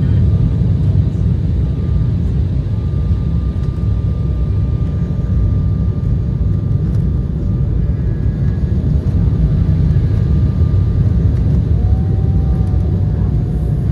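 Steady cabin roar inside an Embraer E175 on short final: the twin turbofan engines and air rushing past the fuselage, with a thin steady whine over a deep rumble.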